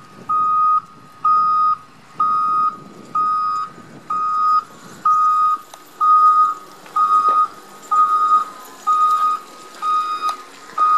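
Wheel loader's reversing alarm beeping steadily, about one beep a second, a dozen times, with the machine's engine running underneath; the beeping stops at the very end.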